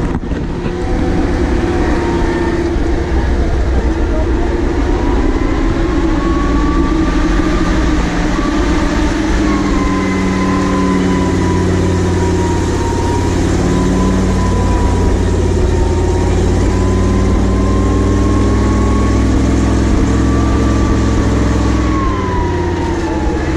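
Ural truck running continuously as it drives over soft sand, its engine drone underlaid by a high whine that slowly drifts up and down in pitch.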